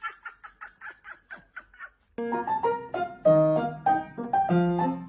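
A quick run of short high-pitched chirps, about five a second, that fades away within two seconds. Then piano music starts and is the loudest sound for the rest.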